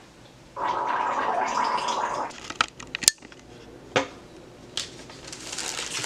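A person gargling mouthwash for about two seconds, followed by several sharp clicks and knocks.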